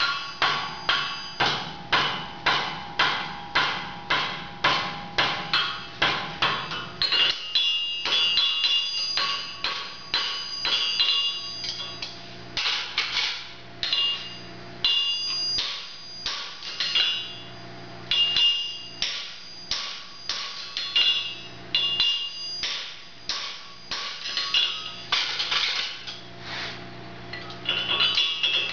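Farrier's hammer striking a red-hot horseshoe on an anvil, each blow with a metallic ring: a quick, even run of about two blows a second for the first seven seconds or so, then slower, irregular blows with short pauses.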